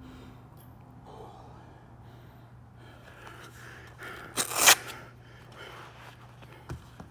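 A boxer's hard breathing while he catches his breath between rounds, with one loud sharp breath close to the microphone about four and a half seconds in, over a steady low hum. A short knock comes near the end.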